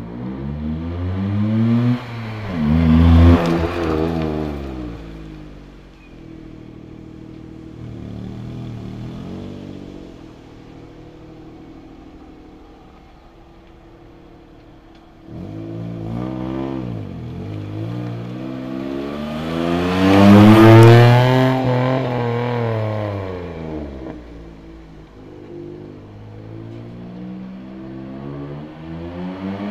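Daihatsu Esse's three-cylinder 660 cc engine running through a Power House D.T.M hybrid dual aftermarket exhaust. It accelerates hard twice, about three seconds in and again about twenty seconds in, the note climbing and then falling away. Between the two runs it runs quieter and steadier.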